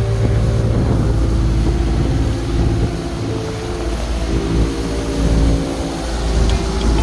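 A small boat's motor running steadily underway, a deep continuous drone.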